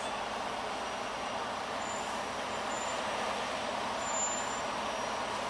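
Steady rushing noise inside a semi truck's cab as it rolls slowly.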